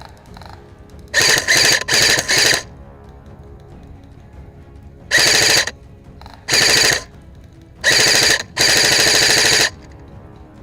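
Airsoft electric gun firing full-auto bursts: a cluster of short bursts about a second in, then four more from about five seconds in, the last lasting about a second. Each burst is a fast rattle of shots with a whine from the gearbox.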